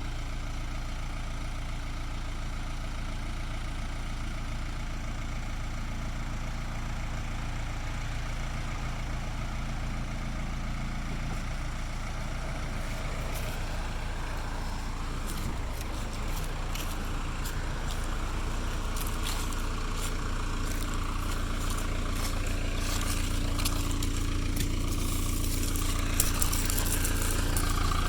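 Case 580E backhoe's engine running steadily, growing gradually louder through the second half, with scattered sharp clicks and cracks over it from about halfway on.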